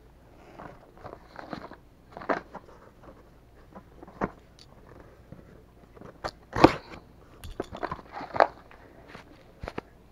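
Close handling noise of a small cardboard mailer box and the camera being moved about: irregular knocks, scrapes and crackles, the loudest about two-thirds of the way through.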